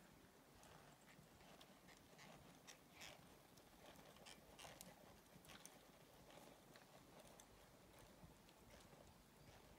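Faint hoofbeats of a horse walking on soft arena sand: soft, irregular clicks a few times a second over a low hiss.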